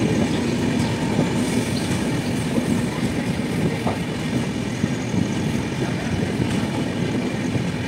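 Passenger train coaches rolling on the rails as the train runs into a station, heard from inside a coach: a steady rumble of wheels on track.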